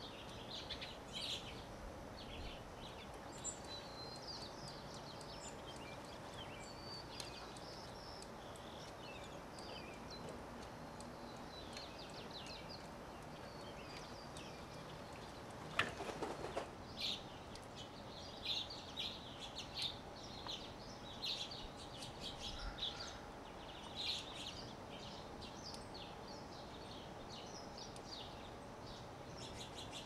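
Small backyard birds chirping in many short, high calls, busiest in the second half, over a faint steady hum. Just before the halfway point there is one brief, louder rustle, the loudest sound here.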